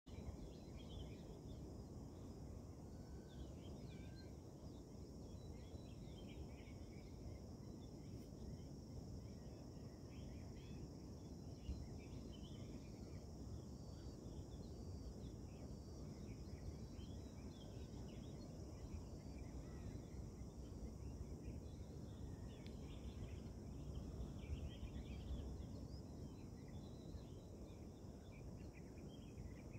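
Faint dawn ambience: many short, high bird chirps throughout, over a low steady rumble.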